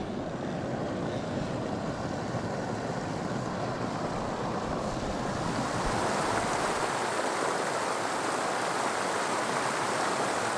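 Creek water pouring over a small ledge into a pool, a steady rush of white water close to the microphone that grows a little louder and brighter about halfway through.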